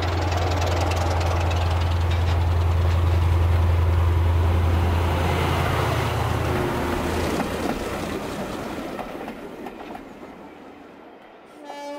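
Model railway train, a diesel locomotive hauling coaches, running past on the layout's track: a steady rumble of wheels on rail with a low drone from the locomotive that drops away about six and a half seconds in as it passes, the rumble fading over the last few seconds. A brief pitched toot sounds right at the end.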